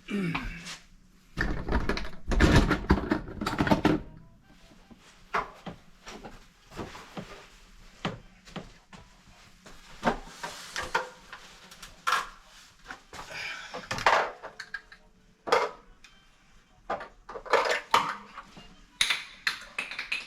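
Irregular knocks and clattering of hard objects being handled, with a loud run of clatter a couple of seconds in and scattered sharp knocks after.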